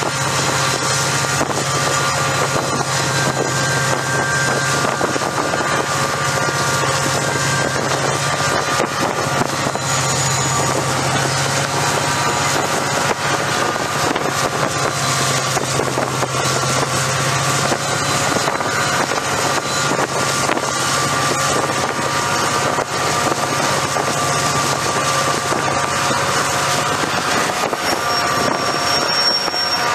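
GM GT22CW diesel-electric locomotive running steadily, a continuous low engine drone with a steady whine above it, and wind on the microphone.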